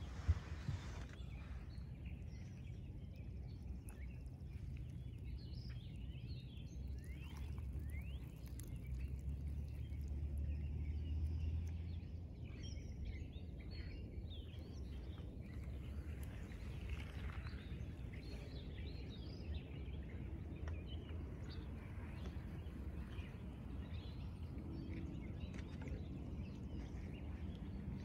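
Birds chirping and calling here and there over a steady low rumble that swells a little about ten seconds in.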